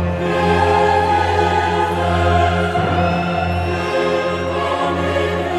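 Orchestral music with a choir singing in an operatic style, full and sustained.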